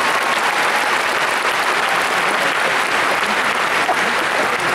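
Large audience applauding steadily in a big arena hall, a dense even crackle of many hands clapping at the end of a speech.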